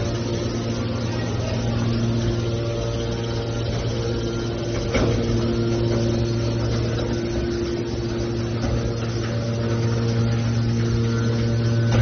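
Hydraulic scrap metal baler's power unit running with a steady, even hum, with a single sharp knock about five seconds in.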